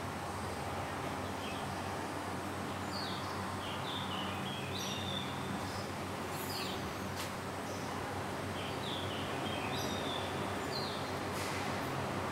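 Small birds chirping in the background, short falling chirps repeated every second or two, over a steady hiss. Two faint clicks, one past the middle and one near the end.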